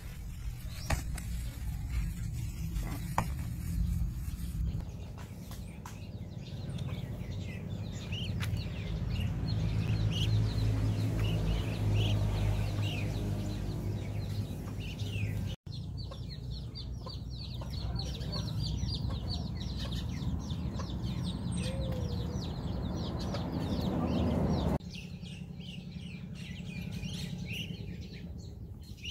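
A flock of ducklings peeping: many short, high cheeping calls overlapping one another, over a steady low rumble.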